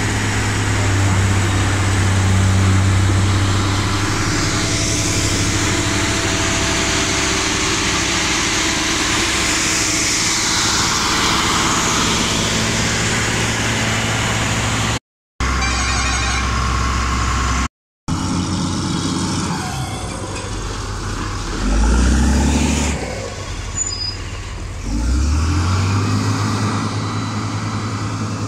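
Diesel engines of heavy road-building machines, a road roller and a LiuGong motor grader, running close by with a steady low drone. The sound breaks off briefly twice. In the last third the engine note rises and falls as the grader works.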